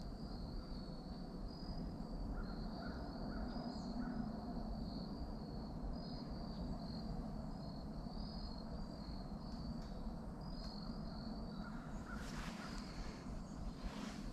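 Woodland ambience: a steady high-pitched chirping throughout, with two harsh bird calls, typical of crows cawing, near the end.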